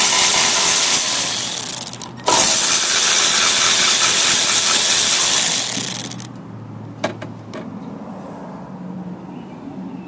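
Milwaukee cordless ratchet running in two long runs with a short break between, backing out the quarter-inch bolts of an engine cover plate. It stops about six seconds in, followed by a couple of light clicks.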